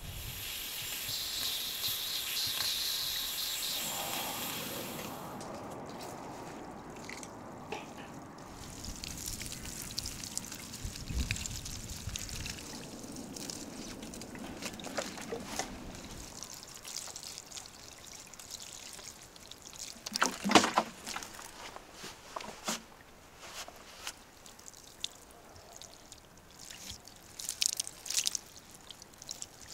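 Water pouring and trickling from a plastic watering can onto garden plants and a potted planter, with a few short knocks, the loudest a brief clatter about two-thirds of the way in.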